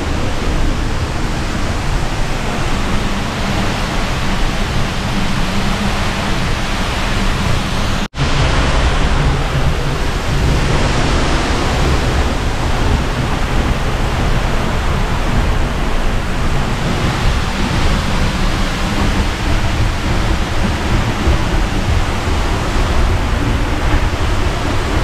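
Seljalandsfoss waterfall plunging into its pool at close range: a loud, steady rush and rumble of falling water, with wind and spray buffeting the microphone. The sound cuts out for an instant about eight seconds in.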